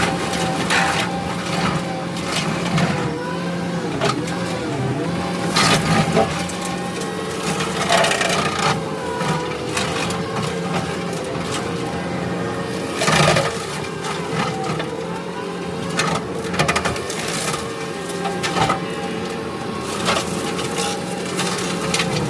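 Kubota SVL65 compact track loader's diesel engine running steadily under load while its brush cutter chews through brush, with a loud crunch of breaking wood every few seconds.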